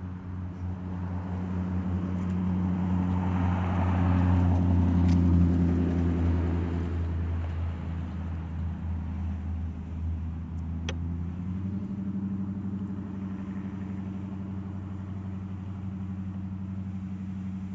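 A steady low motor hum that swells louder for a few seconds near the start, then settles back, with one sharp click about eleven seconds in.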